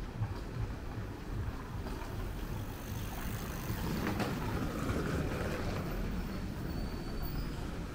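Street ambience with a steady low rumble; a vehicle passes by, its noise swelling from about three seconds in and fading after about six.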